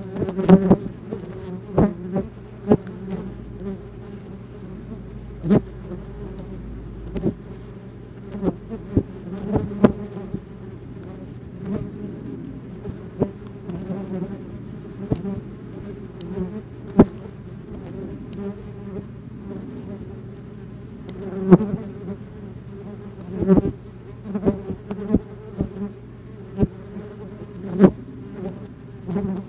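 Wasps buzzing close around a nest entrance, the buzz swelling and fading as they fly past. Irregular sharp ticks come through, several of them louder than the buzz.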